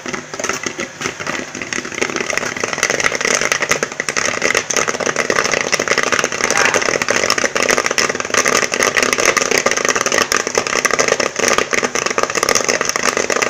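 Corn popping rapidly inside a gas-heated popcorn machine kettle, a dense crackle of pops that grows louder about two seconds in as the kettle fills and overflows. The machine's electric stirrer hums steadily underneath.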